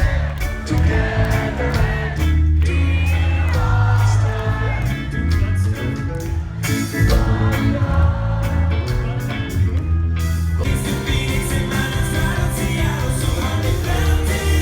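Live rock concert: a band playing loudly with heavy bass and a singer, recorded from the audience. About ten seconds in the music moves into a fuller, denser section.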